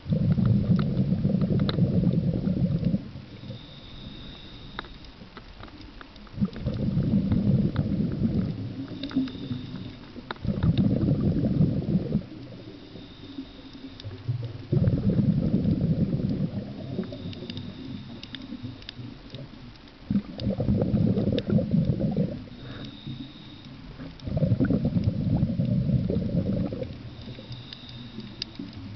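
Scuba diver breathing on a regulator underwater: exhaled bubbles rumble past the camera in low bursts of two to three seconds, six of them, every four to six seconds. In the gaps between exhalations there is a faint high tone and a scatter of sharp little clicks.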